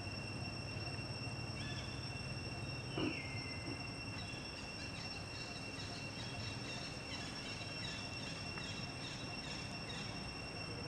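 Steady high-pitched insect drone in the forest, with a short falling call about three seconds in and a run of short repeated chirps, about two a second, through the second half.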